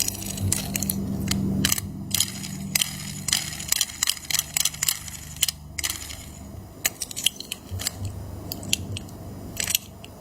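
Toy packaging being handled and opened: irregular sharp crackles and clicks of cardboard and plastic, with a low steady hum over the first couple of seconds.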